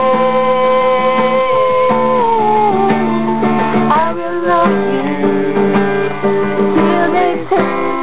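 Background music: a slow love song with guitar and long held notes, the top note sliding down about two seconds in and a new phrase starting about four seconds in.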